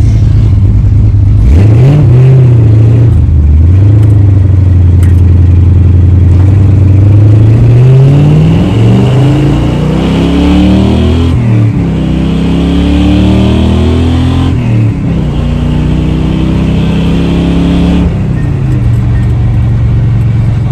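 1963 Chevrolet C10 pickup's engine heard from inside the cab while driving, loud and steady, climbing in pitch under acceleration and dropping back sharply twice as the truck shifts up, then settling to a steady cruise.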